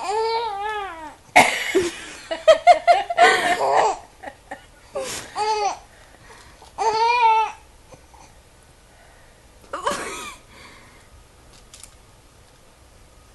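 A 16-week-old baby vocalizing: high squealing coos that arch up and down in pitch, and a rough, raspy run of growling noises early on. Then come three more short squeals spread over the next several seconds.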